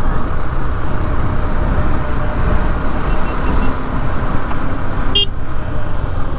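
Riding noise from a moving motorcycle: steady wind buffeting on the rider's microphone over the KTM RC 390's single-cylinder engine running at road speed. A short, sharp click-like beep comes about five seconds in.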